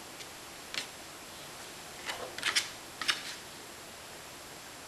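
A few short, light clicks and rustles of hands handling embroidery-floss strings on a clipboard: one about a second in, then a small cluster between two and three and a half seconds.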